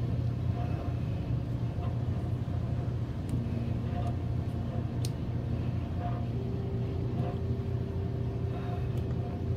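Washing machine running: a steady low hum, with a higher tone joining about three and a half seconds in and another a little past six seconds. A few faint clicks come through now and then.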